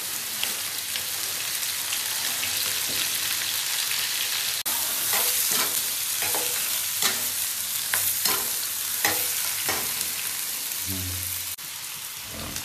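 Chunks of raw lamb sizzling in a hot wok over a gas flame, with a metal ladle repeatedly scraping and knocking against the wok as the meat is stir-fried.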